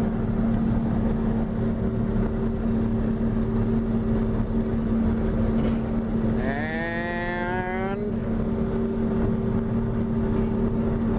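John Deere 6620 combine running steadily, heard from inside the cab, with a constant machine hum. About six seconds in, a drawn-out pitched sound rises and then holds for about a second and a half.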